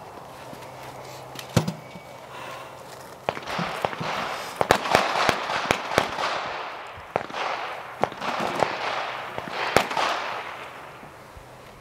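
Irregular strings of pistol shots, packed most densely between about three and ten seconds in, each trailing a rolling echo across the range.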